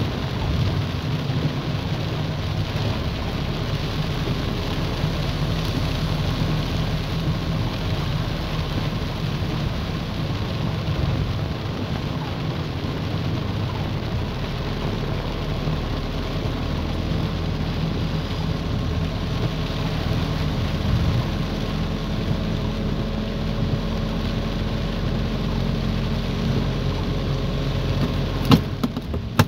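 Heavy rain falling on a moving car, heard from inside the cabin, over the car's low engine rumble and tyres on the wet road. A single sharp knock about a second before the end.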